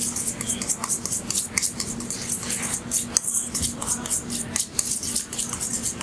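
A utensil stirring a thick mayonnaise sauce in a stainless steel mixing bowl: quick, repeated scraping strokes against the metal.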